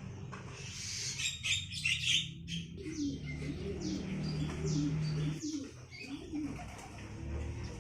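Domestic pigeons cooing in low, wavering calls. Javan mynas chirp and give short, high, falling whistles over them.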